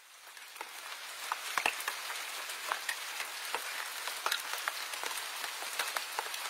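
Steady rain, an even hiss dotted with individual drops clicking, fading in from silence over the first second or so.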